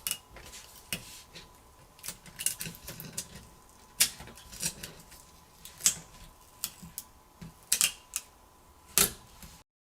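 Irregular sharp clicks and taps with light scraping from small tools and phone parts being handled during a smartphone teardown, over a faint steady hum. The sound cuts off suddenly near the end.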